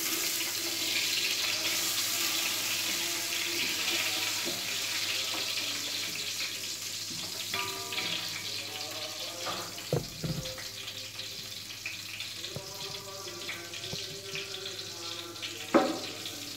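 Butter sizzling as it melts in a hot aluminium pot, a steady hiss that fades over the first several seconds. A few knocks of the wooden spatula against the pot as it is stirred, the clearest about ten seconds in.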